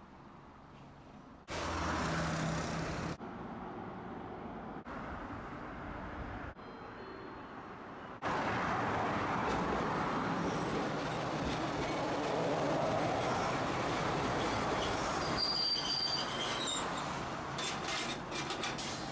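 Streetcar passing close by, its wheels rumbling on the rails, with a high squeal from the wheels near the end. It is preceded by a few seconds of quieter street noise broken by abrupt cuts.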